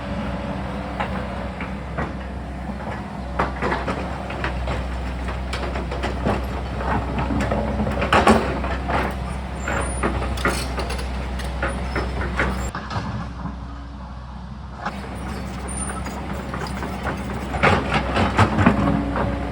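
Sany mini excavator's diesel engine running steadily under many sharp clanks and knocks as the bucket works against rock. The knocking is heaviest about eight to eleven seconds in and again near the end.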